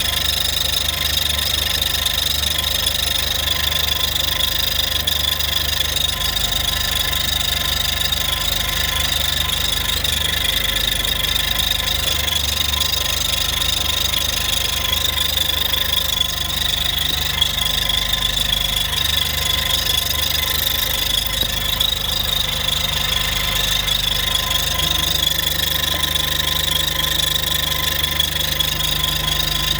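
Mercedes-AMG GLA45's turbocharged 2.0-litre four-cylinder idling warm, with a steady high-pitched squeaking over the engine note. The squeak is the fuel rail valve fluttering because it cannot handle the high-pressure fuel pump's flow, a fault in the ECU's fuel pressure control calibration.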